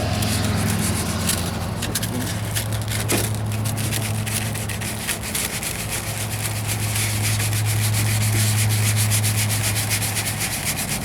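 Sandpaper being rubbed by hand over filler primer on a steel truck wheel arch in quick back-and-forth strokes, with a steady low hum beneath.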